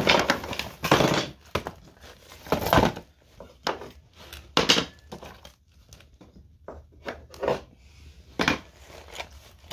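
Rustling and crinkling of small bags and pouches being picked up and moved about, with a few light knocks, in irregular bursts.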